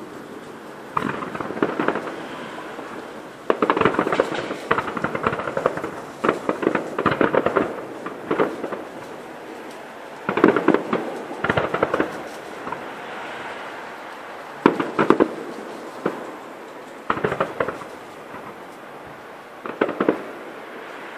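Fireworks display: shells bursting in salvos of rapid bangs and cracks. The salvos come in clusters about a second long every few seconds, with quieter gaps between.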